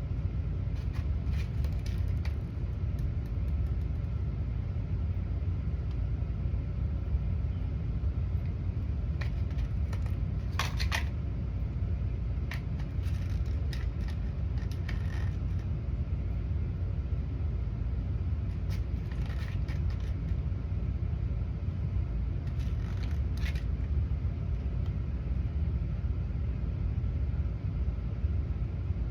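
A steady low rumble throughout, with scattered light clicks and taps of small plastic star sparkles and their container being handled and sprinkled onto slime, the clearest a short cluster about ten seconds in and another near the end.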